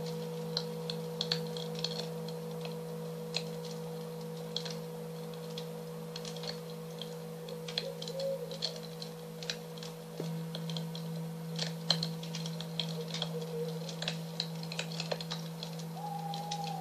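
A large singing bowl ringing with a steady, pulsing low hum, its low tone swelling again about ten seconds in. Over it a wood fire crackles and pops in short sharp clicks.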